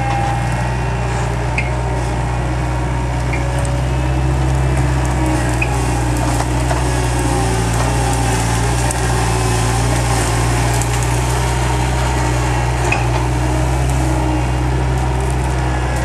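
Skid steer loader's engine running steadily as the machine works brush with a grapple root rake, a constant low hum with a few faint clicks over it.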